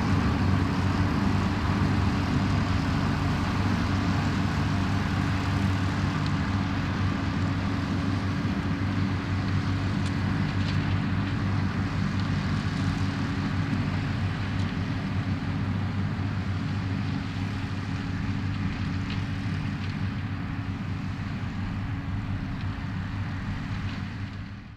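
New Holland TM155 tractor's diesel engine running steadily while it works a Claas Variant 385 round baler. The sound grows slowly fainter, then fades out quickly at the very end.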